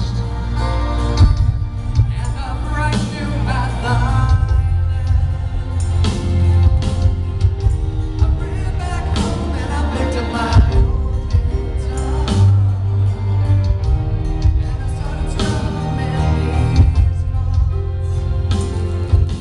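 A pop song performed live and played loud, with singing over a heavy, bass-laden backing.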